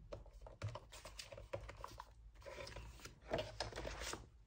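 Crinkling and rustling of cellophane-wrapped card and paper packs and a paper catalogue being picked up and moved across a desk, in irregular short rustles with a louder stretch about three seconds in.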